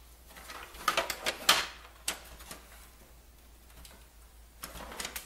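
Plastic computer case parts being handled and fitted together: a cluster of sharp clicks and scrapes in the first two seconds, then another scrape near the end.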